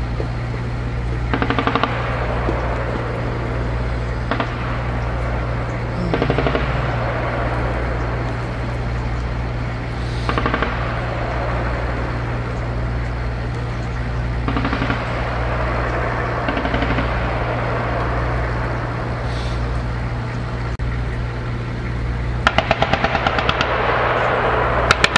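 Vehicle-mounted machine gun firing downrange in short bursts, five brief ones a few seconds apart and then a longer burst near the end, over a steady low hum.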